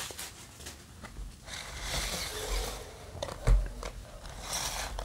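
Hands handling cardboard trading-card booster boxes on a wooden table: faint rustling and scraping with a few light clicks, and a dull thump about three and a half seconds in as a box is set down.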